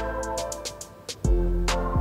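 Background music: held chords over a drum beat, dipping briefly about a second in before the beat comes back.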